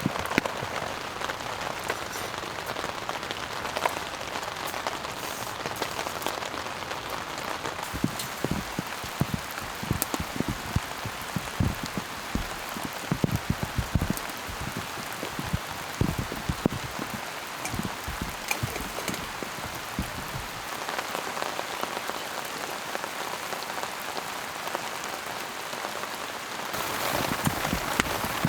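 Steady rain falling, with many separate drops striking a nearby surface; it grows louder near the end.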